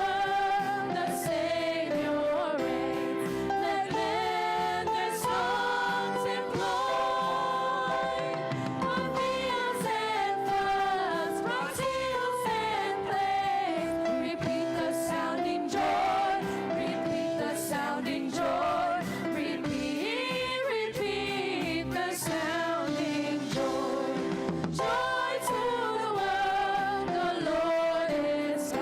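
Children's choir singing a song over instrumental accompaniment.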